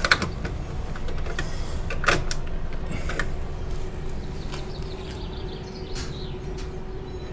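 Small rubber hand stamp knocked down onto a paper hiking passport held against a board. There are a few sharp knocks, the loudest at the start and about two and three seconds in, over a steady low hum.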